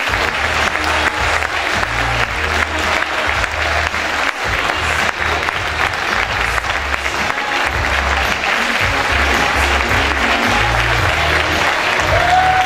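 Audience applauding steadily, over background music with a pulsing bass line.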